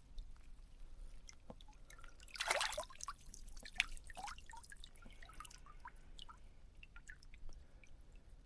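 Water dripping and trickling in many small drops, with one louder splash about two and a half seconds in.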